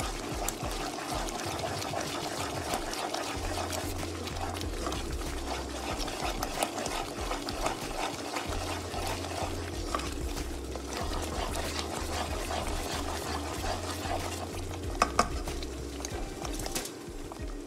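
A spoon stirring thick, wet semolina halwa in a non-stick pan: soft wet scraping and stirring over a steady hum, with two sharp knocks about 15 seconds in.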